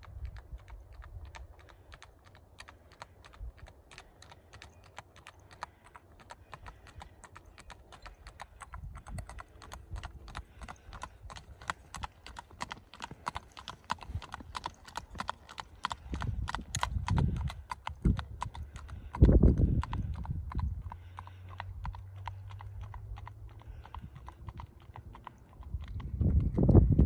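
A ridden horse's hooves clip-clopping on an asphalt road in a quick, even beat of several strikes a second. The beat grows louder near the end. Two short low rumbles come about two-thirds of the way through.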